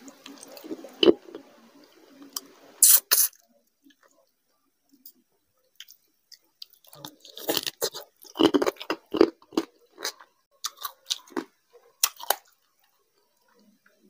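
Close-miked wet chewing and lip-smacking of a mouthful of rice and curry, in irregular bursts of sharp smacks and crunchy clicks, with a quiet pause in the middle.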